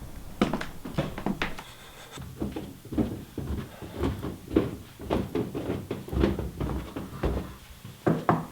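A run of irregular knocks and thumps, about two or three a second, some with a dull low thud.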